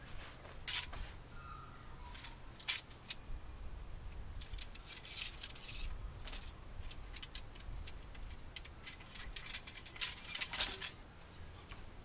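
Tent poles clicking and clinking together, with the tent fabric rustling as it is handled, in scattered short bursts; the loudest clack comes near the end.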